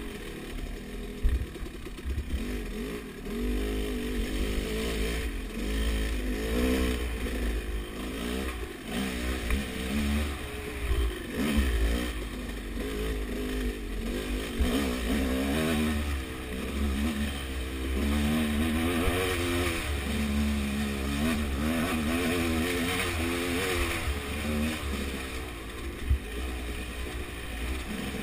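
Dirt bike engine revving up and down as the throttle is worked, with a low rumble underneath and a couple of sharp knocks, one about a second in and another near the middle.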